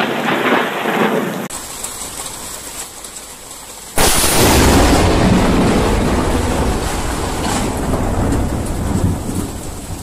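Thunderstorm with rain and thunder. About four seconds in, a sudden, very loud thunderclap from a lightning strike on a nearby tree, followed by a long, loud, deep rumble.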